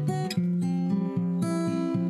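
Background music: acoustic guitar playing a steady, regular plucked rhythm.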